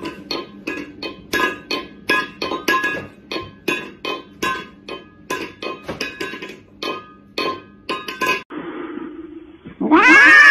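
A cat batting a stainless steel food bowl across a tiled floor with its paw, the bowl clanking and ringing about three times a second. Near the end a cat's loud, drawn-out meow begins.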